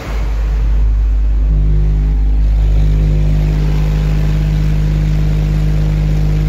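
A wall of four Genius Audio G9 subwoofers in a VW Golf playing a steady 51 Hz test tone at full power, an SPL burp for a decibel reading. The deep tone starts suddenly and holds steady, and a buzzing edge of overtones comes in about a second and a half in.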